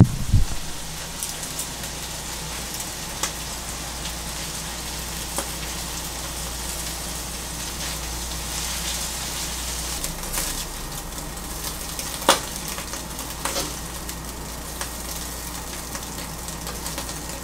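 Food sizzling steadily in a wok over a lit gas burner, with a few sharp clicks of a utensil against the pan.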